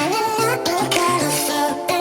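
Background music: an electronic pop track with a melodic line and a steady beat.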